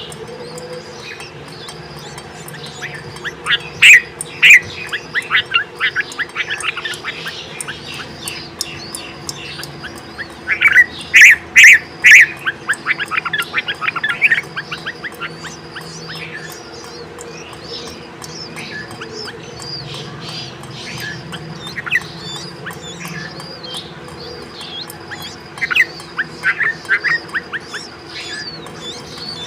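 Bulbuls at the nest during feeding: three bouts of rapid, loud chirping, about four seconds in, around eleven seconds and near the end, with softer, higher calls repeating between them.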